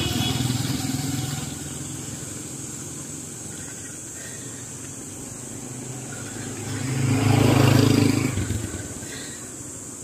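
Motorcycle engines passing on the road: a tricycle's engine running close at the start and fading, then another motorcycle coming up and passing loudly about seven to eight and a half seconds in, rising and dying away.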